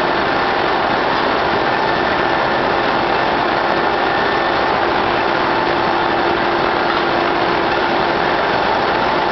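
Ustunkarli UYYM 120-3 horizontal band re-saw running steadily as boards feed through it on its powered rollers: a constant machine drone with a steady hum and a faint higher whine.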